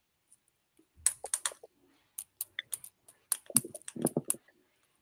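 Typing on a computer keyboard: an irregular run of key clicks and taps for about three seconds, starting about a second in.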